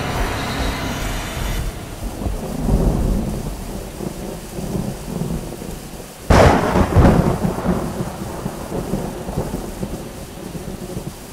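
Thunderstorm: steady rain with low rolling thunder, then a sudden loud thunderclap about six seconds in that rumbles away over the next few seconds.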